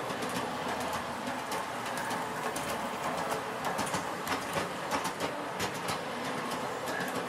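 LGB G-scale model train running on its track: a steady motor whir with the wheels clicking and rattling irregularly over the rails.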